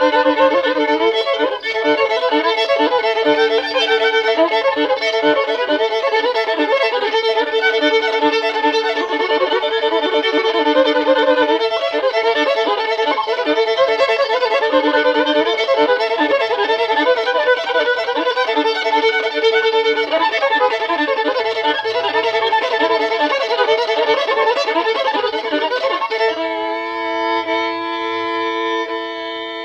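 Fiddle music: bowed fiddle playing a quick, busy hillbilly-style line against sustained drone notes. About 26 s in it settles into a long held double-stop chord.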